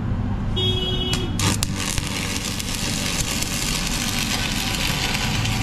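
Stick (manual arc) welding on a steel truck brake drum: the arc's crackling sizzle starts about a second and a half in and carries on steadily. A steady low hum runs underneath.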